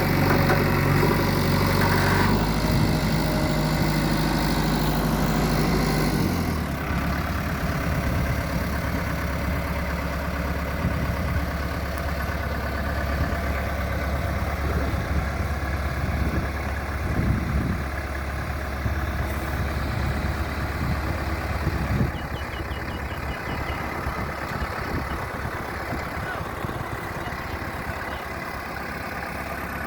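JCB 3DX backhoe loader's diesel engine running, dropping to a lower, quieter note about six seconds in and then idling steadily.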